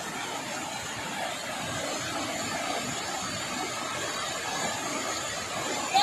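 Large waterfall: a steady, unbroken rush of water crashing down onto rock.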